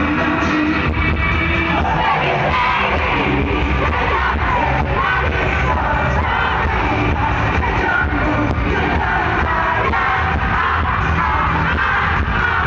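Live pop concert music with a steady bass beat and male singing over the arena PA, with the audience yelling along.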